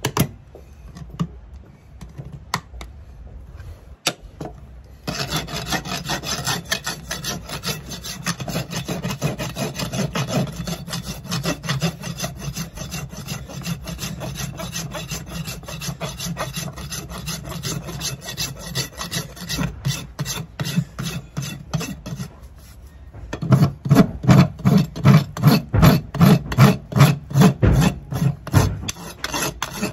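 A farrier's rasp filing the hoof wall of a shod horse's front hoof as it is finished off. Rapid, steady strokes start about five seconds in. After a brief pause near the end come louder, more separate strokes, about three a second.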